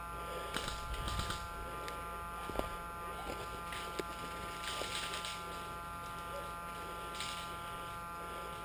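A steady buzz of several held tones, with a few short rustling noises and two sharp clicks.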